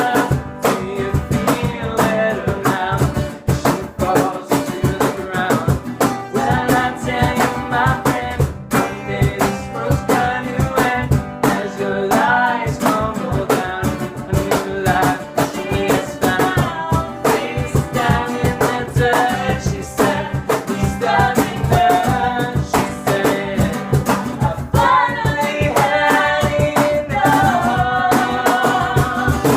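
A rock song played by a band: guitar and drum kit with singing over them. It ends near the close, the sound falling away right at the finish.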